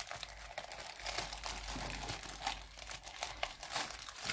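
Packaging crinkling and rustling in quick irregular crackles as items are handled and unpacked.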